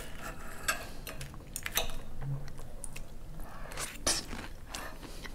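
Metal fork and knife scraping and clinking against a ceramic plate while cutting through poached eggs, with a few sharp clinks spread through.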